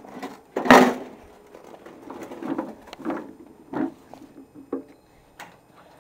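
A series of irregular knocks and thuds, the loudest and sharpest about a second in, followed by several softer ones spaced roughly half a second to a second apart.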